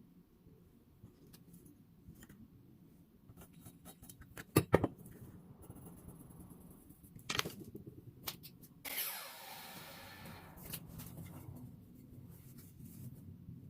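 Scattered clicks and knocks of tools and metal parts being handled during a repair, with two sharp knocks about four and a half seconds in and another near the middle. A short burst of hiss starts suddenly about nine seconds in and fades away.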